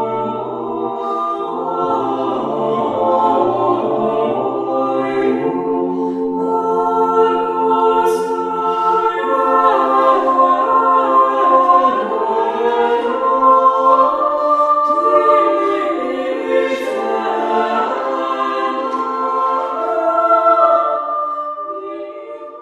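Unaccompanied choir singing in several voice parts, holding long chords that change slowly; it fades out at the end.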